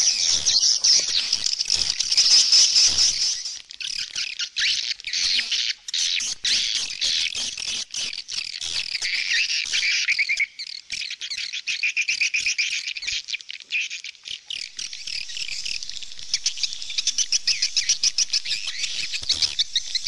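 Swallows twittering: a dense, unbroken stream of rapid high chirps, turning into an evenly repeated fast chatter in the last few seconds.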